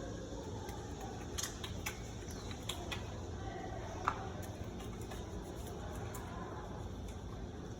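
Steady low room noise with a few light, scattered clicks and taps, the sharpest about four seconds in.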